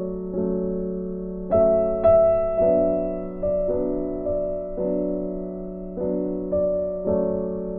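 Background music: a soft piano playing slow chords and single notes, each note struck and left to fade.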